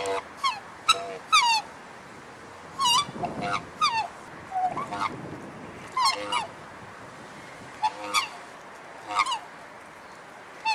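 Black swan calling: a series of short honking, bugle-like notes, many with a quick slide in pitch, coming singly or in pairs about every second with a few short gaps.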